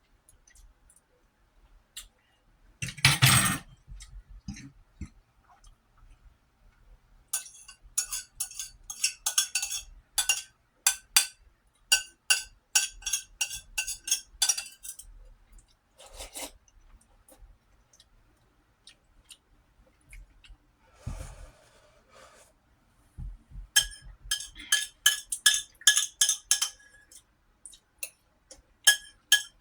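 An eating utensil clinking and scraping rapidly against a bowl in two long runs of quick taps, the bowl ringing with each tap, as the last of the food is scooped up. A single louder sound comes about three seconds in.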